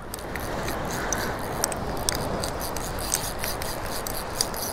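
Spinning reel being cranked to reel in a hooked fish, its gears and line giving a quick rasping tick, over a steady wash of surf and wind.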